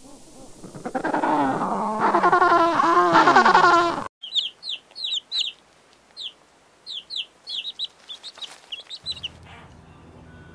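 Bird calls: a loud, wavering pitched call of several rising-and-falling notes for about four seconds. After a sudden cut comes a series of short, high chirps, each falling in pitch.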